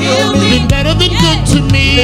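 Gospel praise team singing with instrumental accompaniment: a male lead voice over backing singers and steady bass notes.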